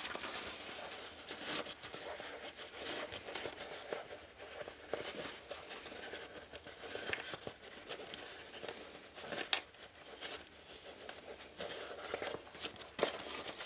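Stiff waxed canvas rustling and crinkling as hands bunch and slide it along a wire, threading paracord through the pouch's drawstring channel: irregular short rustles and small ticks.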